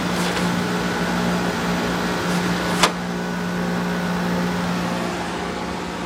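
Maytag 45-pint dehumidifier running with its compressor and fan on low: a steady hum that the owner puts down to the water bucket vibrating with the compressor, not the compressor itself. A single sharp tap just before the halfway point.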